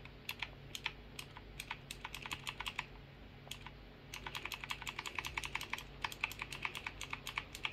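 Computer keyboard keys pressed while setting the date in a BIOS screen: scattered single keystrokes at first, then a fast run of presses, several a second, from about four seconds in.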